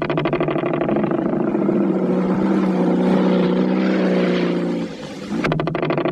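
Heavy engine running with a fast, even throb. It dips briefly about five seconds in, then picks up again at full strength.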